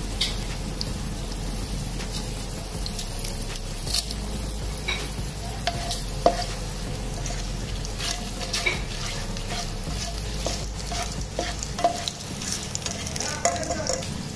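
Green and dried red chillies frying in hot ghee in a nonstick pan: a steady sizzle with scattered crackles and pops, while a slotted spatula stirs and scrapes through the pan.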